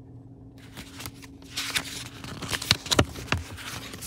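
Pages of a picture book being turned: paper rustling with a few sharp flicks, starting about a second and a half in and ending shortly before the end.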